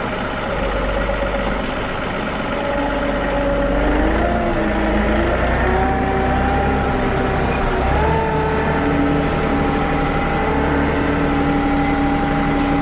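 John Deere compact diesel tractor engine running under work as the front loader is operated, its pitch wavering around four seconds in and stepping up just before eight seconds in, then holding steady.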